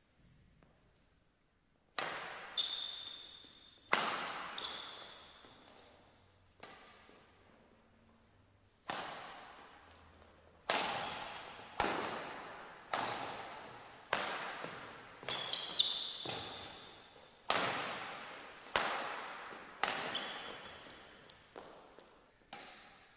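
Badminton racquets striking a shuttlecock in a long rally, about one sharp hit a second, each ringing out in a large hall, with brief high squeaks of shoes on the court mat.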